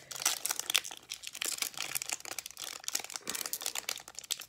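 Baseball card pack wrapper crinkling and tearing as it is peeled open by hand: a quick, irregular run of sharp crackles.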